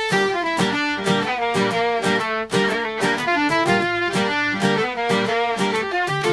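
Instrumental background music with quick, evenly paced notes.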